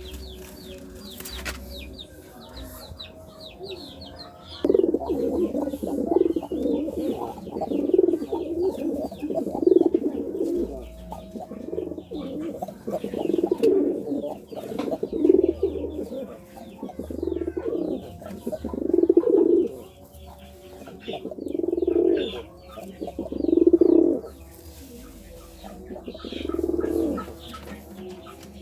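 Domestic pigeon cooing in courtship: repeated low coos, one every second or two, starting about five seconds in. Faint high chirps of small birds are heard behind.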